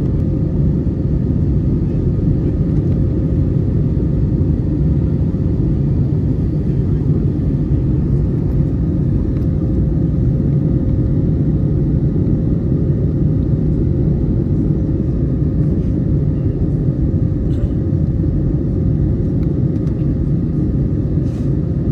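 Steady cabin roar of an Airbus A321neo climbing out after takeoff: engine and airflow noise from a rear window seat, with a constant hum tone over a deep, even rumble.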